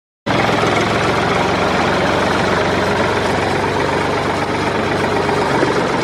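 An engine idling with a steady, dense rattling hum that starts abruptly just after a brief silence.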